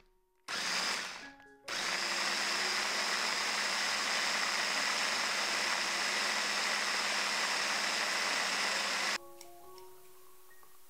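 Countertop blender motor pulsed briefly, then running steadily for about seven seconds as it purées ice cream and chocolate fudge sauce into a smooth milkshake. It cuts off suddenly near the end.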